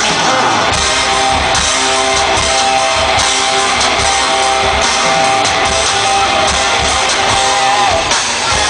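Loud music: a chord held for most of the time over a steady low beat, with a slight bend in pitch near the end.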